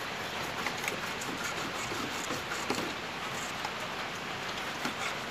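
Steady rain falling: an even hiss with scattered faint ticks and taps.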